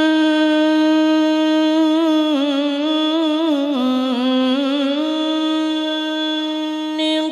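A man's voice chanting one long drawn-out phrase in the melodic langgam style of Quran recitation. He holds a steady note, winds it through wavering ornaments in the middle, settles back on a held note and breaks off near the end.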